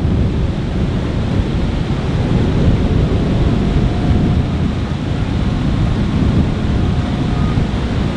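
Wind buffeting the microphone: a steady low rumbling noise, with choppy river water beneath it.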